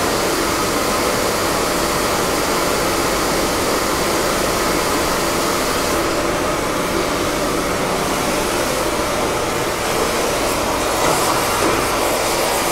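A steady, even rushing noise with no rhythm. It turns slightly louder and rougher in the last couple of seconds.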